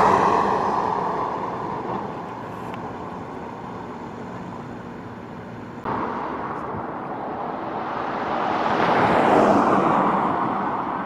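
Road traffic: a vehicle passes right at the start and fades away, then after an abrupt jump in the sound about six seconds in, another vehicle approaches and passes about nine seconds in.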